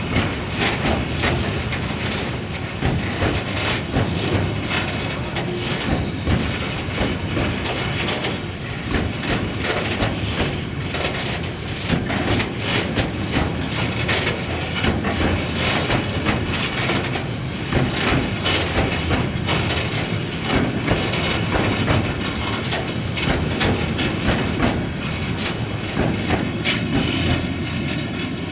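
Timber-loaded open freight wagons rolling past steadily, their wheels clattering and clicking in a constant rapid stream of knocks over the rail joints.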